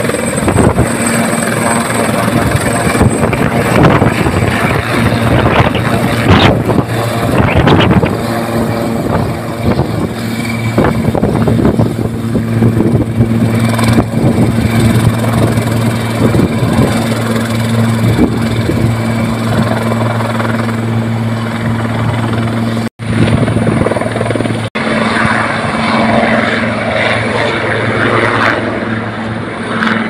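Helicopter running on the ground with its main rotor turning: a steady, loud hum. The sound cuts out for an instant twice near the end.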